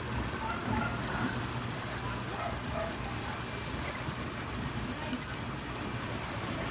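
Steady road and wind noise from a vehicle moving along a street, with other traffic around it.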